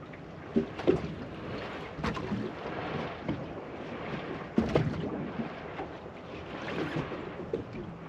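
Wind buffeting the microphone over the sound of water against a boat's hull, with a few short knocks, the loudest about four and a half seconds in.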